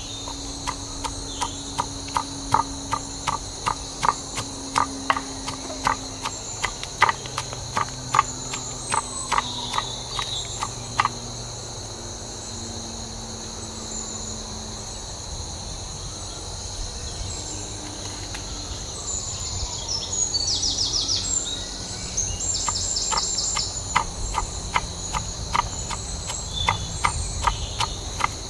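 Wooden pestle pounding in a wooden mortar, regular knocks about two a second, grinding salt, chili and shallot into a spice paste; the pounding pauses for about thirteen seconds and starts again near the end. Behind it, forest insects chirr steadily, with a louder fast pulsing trill partway through.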